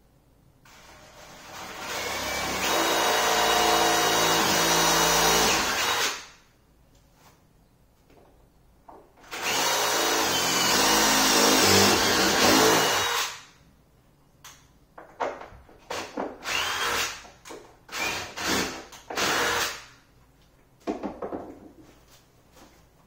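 Cordless drill boring a recess into a wooden butcher-block countertop. There are two long runs, the first winding up gradually over about five seconds and the second lasting about four seconds, followed by a string of short trigger bursts.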